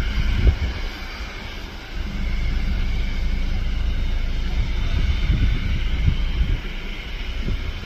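Boeing 737-800's CFM56 jet engines running at taxi power with a steady whine over a low rumble as the airliner taxis. Wind buffets the microphone in gusts, with a brief lull about a second in.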